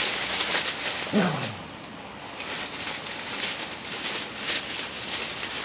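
Dry fallen leaves and twigs rustling and crackling as dogs move about in the undergrowth, with one short falling whine from a dog about a second in.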